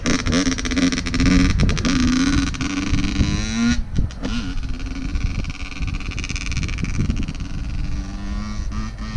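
Honda dirt bike engine running under way, then about four seconds in the revs sweep down and it settles into a steady idle.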